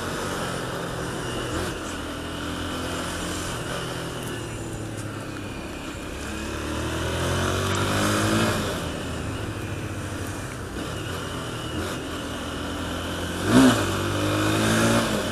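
Motorcycle engine heard from the rider's seat, rising and falling in pitch as it accelerates and eases off. A brief louder sound comes near the end.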